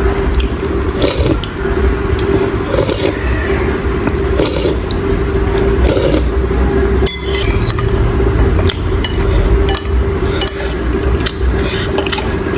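Eating utensils clinking and scraping against a bowl of soup, in scattered short clicks, over a steady hum.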